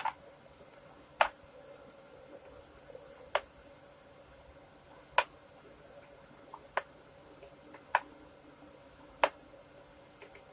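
About eight sharp metal clicks, unevenly spaced a second or two apart, with two close together: a fret rocker tipping back and forth over the frets of a guitar neck. The clicking marks a high fret that is rocking quite badly and needs filing.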